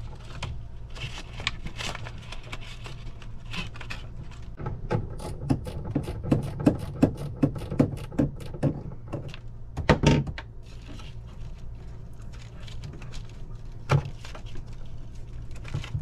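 Small socket wrench ratcheting in a run of evenly spaced clicks as a loose hose clamp on a boat's air-conditioning water hose is tightened. Two sharper metal knocks follow, one about ten seconds in and one near the end, over a steady low hum.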